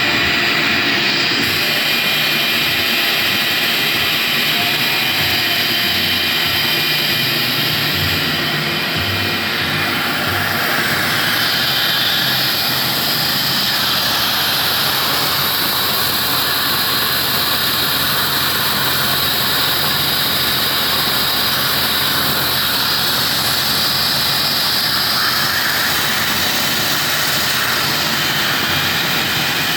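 Milling machine running and cutting metal, milling out carburetor bases: a loud, steady machining noise with a high whine.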